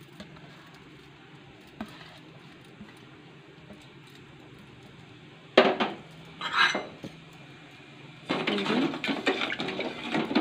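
Low steady hum, broken a little past halfway by two short metal clanks at the pot. Near the end a metal ladle starts stirring in a large aluminium pot of water, scraping and clattering against its sides.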